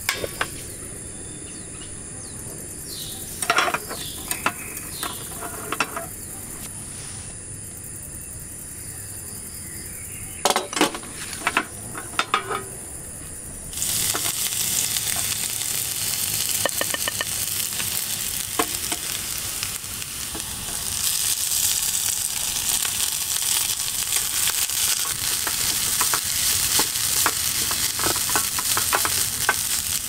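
Cooking utensils clinking and scraping against a pan, then about halfway through a loud frying sizzle starts suddenly and grows louder later on.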